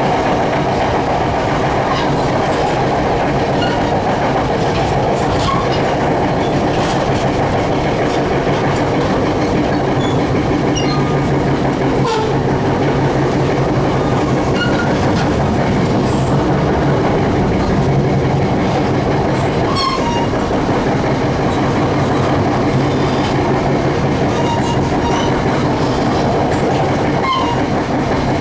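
Passenger train running steadily at speed, heard from on board: a constant rumble of wheels on the rails and a low motor hum. Brief high squeaks and a couple of sharp clicks are scattered through it.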